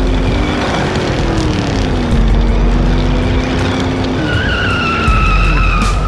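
Whine of a 1/12-scale remote-control F1 car: a pitched whine that sinks and then holds, then a higher whine that falls slowly through the last couple of seconds as the car turns. A heavy low rumble runs underneath.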